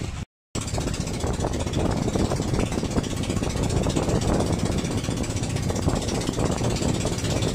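Outrigger fishing boat's engine running steadily with a rapid knocking beat, heard on board. It cuts in just after a brief dropout at the very start.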